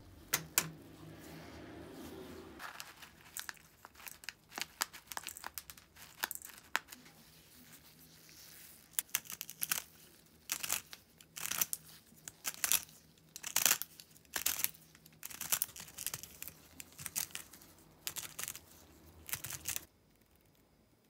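Hand-cranked antique wooden pepper grinder crushing whole mixed peppercorns: a long run of irregular crunching and cracking as the crank turns. It stops abruptly near the end.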